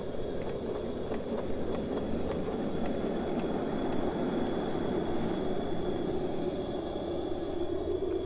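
Coal-fired miniature live steam locomotive running: a steady rushing hiss with a few faint clicks in the first half.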